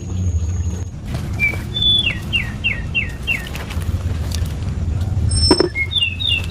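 A songbird singing: one high note, then a quick run of five down-slurred whistled notes, with more notes near the end. A steady low rumble and scattered clicks run underneath, and a short sharp knock comes about five and a half seconds in.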